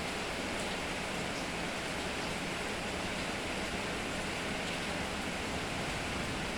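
Steady rain falling: an even, unbroken hiss with a few faint drop ticks scattered through it.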